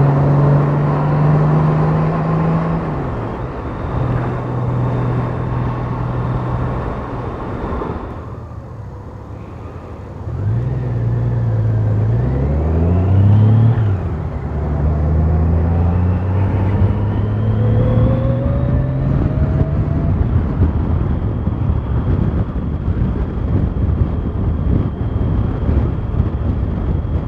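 A motor vehicle engine running steadily, then dropping in level for a couple of seconds before picking up again with rising and falling pitch, like accelerating and changing speed. The later part turns rougher and noisier, like wind on the microphone while moving.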